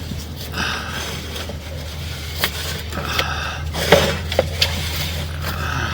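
Sewer inspection camera rig being fed into a cast iron drain line: a steady low machine hum throughout, with scattered sharp metallic clinks and scraping, four clear knocks in the second half.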